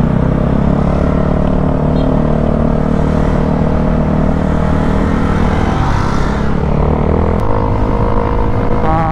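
Motorcycle engine running steadily while riding on the road. About six seconds in the engine note drops, then settles at a new steady pitch, as with a change of throttle or gear.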